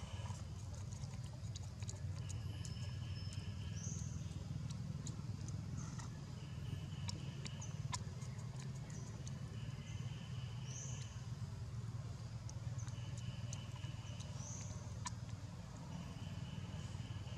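Outdoor ambience: a steady low hum, scattered sharp clicks, and a short high call that repeats about every three to four seconds.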